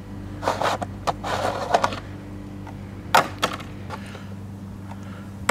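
Plastic chain bar cover being slid off a chainsaw's guide bar: a scraping rustle about half a second in and again for about a second, then two sharp clacks about three seconds in, over a steady low hum.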